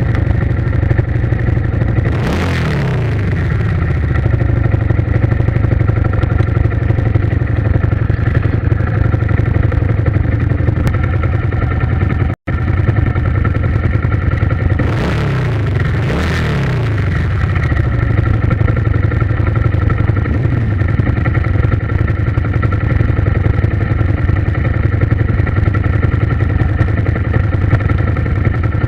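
A vehicle engine running steadily, with a few brief whooshing sweeps that rise and fall in pitch, about two seconds in and twice around the middle, and a momentary cut-out of the sound partway through.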